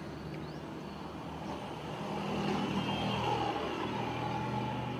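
A motor vehicle passing by, its engine hum swelling to a peak about three seconds in and then easing off.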